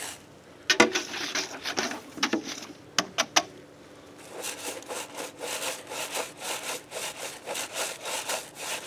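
Engine bore brush scrubbing a cylinder bore of a Chevrolet 6.0 L V8 block with soapy water, rhythmic back-and-forth strokes that clean out oil film and caked-on oil before honing. A few sharp knocks come in the first three and a half seconds, before the steady scrubbing starts.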